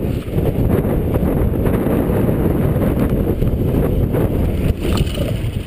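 Wind buffeting an action camera's microphone as a mountain bike rolls fast over slickrock, a steady low rumble with scattered clicks and rattles from the bike.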